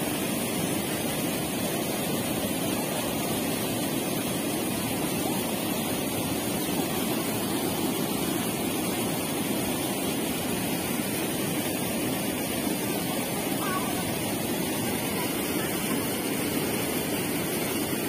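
River water rushing steadily over rocks and through a small rapid, a continuous even noise.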